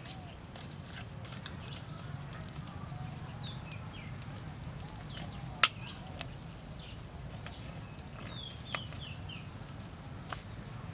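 Birds chirping in short, repeated calls that slide down in pitch, over a steady low background. A few sharp snaps cut through, the loudest about halfway through.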